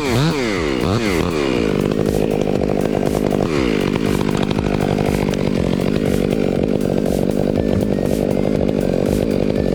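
Chainsaw revving up and down quickly a few times, rising once more about three and a half seconds in, then held steady at high revs.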